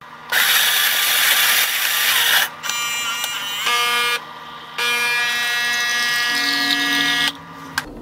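Saeco Odea Giro Plus II super-automatic espresso machine running a brew cycle: a harsh whirring noise for about two seconds, typical of its built-in grinder, then the pump's steady buzzing hum. The hum runs for about a second and a half, stops briefly, then runs again for about two and a half seconds as the shot pours.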